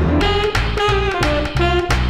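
Background music: an upbeat jazzy tune with a melody line over drums and bass, playing at a steady beat.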